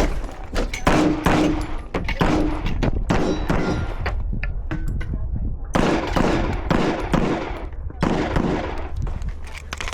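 Pistol gunshots fired in rapid strings of quick shots, with a pause of a second or two midway between strings.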